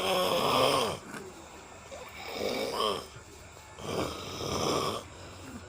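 A man snoring loudly in his sleep: three snores, each about a second long, with short pauses between.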